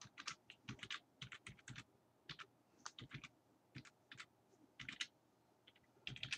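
Computer keyboard keys typed in quick, irregular runs of clicks while an email address is entered, with a brief pause a little past the middle.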